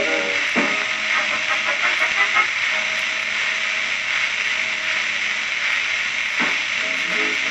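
Shellac 78 rpm record playing on a turntable: loud, steady surface hiss with a swing band playing softly underneath, and a couple of pops, about half a second in and again near the end.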